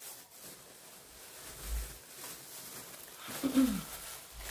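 Faint rustling and handling of decorations and their packaging, with a couple of soft low thumps. A short low sound falling in pitch comes about three and a half seconds in.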